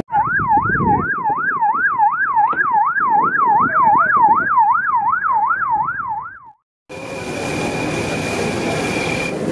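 An electronic siren wailing in a fast up-and-down yelp, about three sweeps a second, used by the patrol vessel during the interception of the fishing boats. It cuts off abruptly after about six and a half seconds, and after a short gap a steady mechanical noise with a thin high whine follows.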